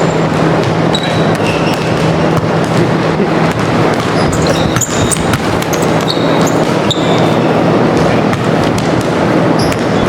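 Basketball game on an indoor court: a ball bouncing and scattered short, high sneaker squeaks over a steady din and a constant low hum.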